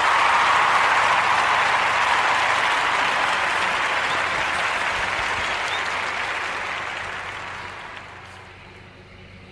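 Applause from a crowd, a dense steady clatter of many hands that dies away over the last two or three seconds.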